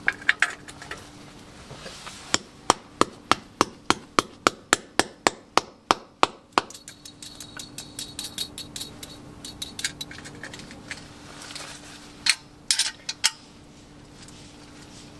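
Hammer blows on the pin of a pin-type anchor bolt set in concrete, a run of sharp metallic strikes at about four a second, driving the pin in so the anchor's tip spreads and locks in the drilled hole. This is followed by quicker, lighter metallic clicking with a faint ring, and a few last taps near the end.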